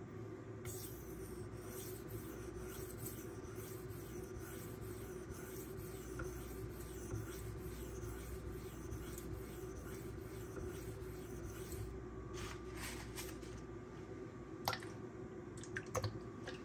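Magnacut knife edge stroked repeatedly across a 2500-grit silicon carbide whetstone under light hand pressure: a steady scraping of short strokes that stops about twelve seconds in, followed by a few sharp clicks near the end.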